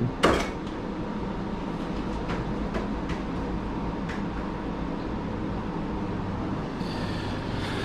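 Steady machine hum with a few light clicks over it.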